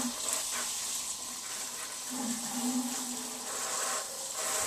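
Kitchen tap running steadily as a sauce bottle is rinsed under it, the water shutting off near the end.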